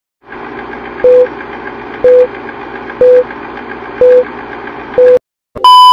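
Film-leader countdown sound effect: a steady projector-like whir with a short beep once a second, five times. After a brief silence, a long, higher-pitched beep starts near the end.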